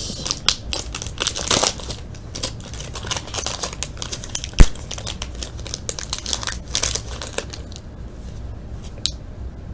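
Shiny foil trading-card pack wrapper crinkling and crackling as it is crumpled and the cards are pulled out and handled, busiest in the first seven seconds and quieter after. A single sharp tap stands out about four and a half seconds in.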